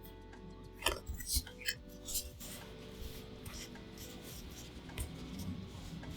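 Trading cards being handled: several short rubs and slides of cards against one another in the first couple of seconds, then a softer hiss of cards sliding.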